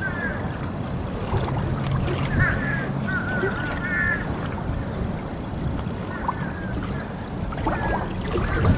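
Outdoor riverside ambience: a steady low rumble with wind on the microphone, and short high chirping bird calls scattered through it every second or so.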